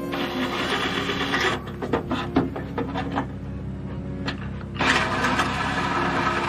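Reciprocating saw cutting through the sheet-steel radiator core support, a fast rattling buzz in two long cuts with lighter clattering between them.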